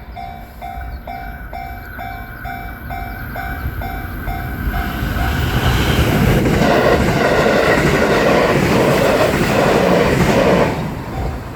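Japanese level crossing warning bell ringing steadily, about two strikes a second, then a train passes through the crossing from about five seconds in, a loud rumble with rhythmic wheel clatter that drowns the bell. The train noise cuts off fairly suddenly near the end, and the bell is heard again.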